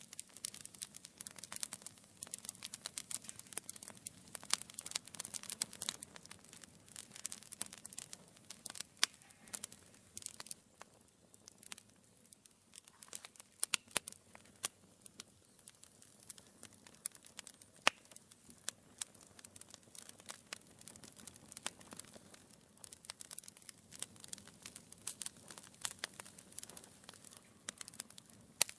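Wood fire burning in a fireplace, crackling with a dense run of small pops and snaps over a soft low rumble of the flames.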